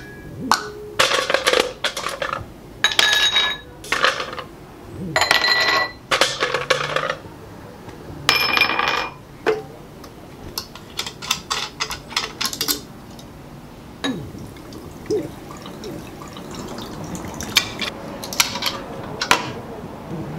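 Ice cubes clinking and ringing against glass tumblers in four loud bursts over the first nine seconds, then lighter clinks and liquor poured over the ice near the end.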